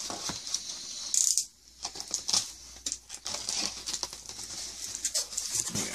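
A cardboard mailer and its packing being handled and opened by hand: an irregular run of rustling, crinkling and small knocks.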